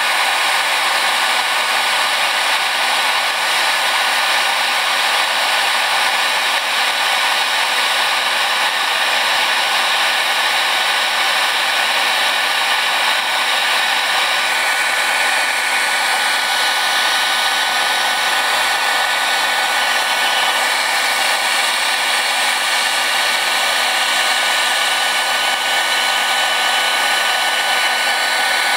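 Heat gun running steadily, its fan blowing hot air at close range onto a car's floor sound-deadening mat: an even rushing hiss with a faint steady whine.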